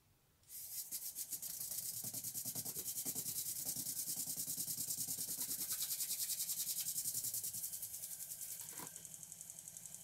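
Washing-machine motor powered from a 12 V lithium battery, starting about half a second in and spinning a three-blade propeller on a long plastic-pipe shaft in the air. It makes a steady, fast, evenly pulsing hiss that eases a little near the end, with a short click shortly before the end.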